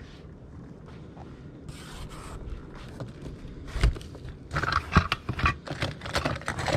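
Objects being handled and scraped against each other. It is quiet at first, then from about halfway through comes a run of sharp knocks and scraping clatter.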